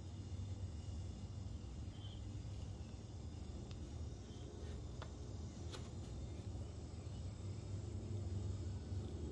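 Quiet outdoor ambience: a steady low hum with a few faint clicks and faint distant chirps.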